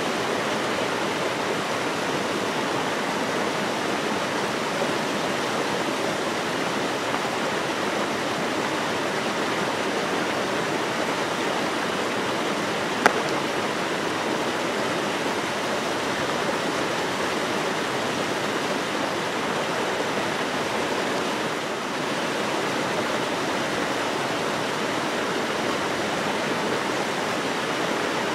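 Small mountain waterfall cascading over rocks into a pool, a steady even rush of water. A single sharp click about halfway through.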